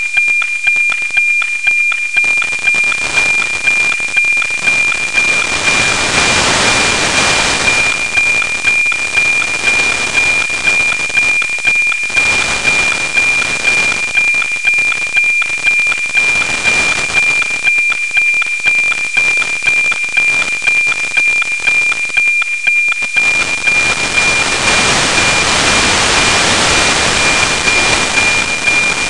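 FM-demodulated NOAA 19 APT weather-satellite signal from an SDR receiver: a steady 2.4 kHz tone with a regular tick-tock of sync pulses twice a second, under a heavy hiss. The hiss swells twice, around 6 seconds in and again near the end, as the weak signal of a low pass fades.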